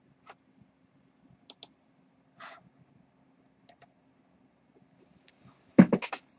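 Computer mouse clicks: a few scattered single clicks, then a quick run of louder clicks near the end, over a faint steady hum.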